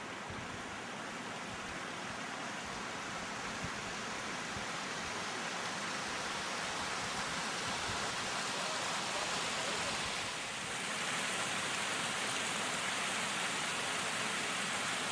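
Steady rushing of a mountain stream, with a brief dip about ten seconds in.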